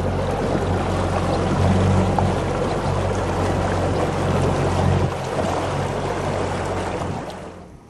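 A boat's motor running steadily under a rush of water and wind noise; the sound drops away near the end.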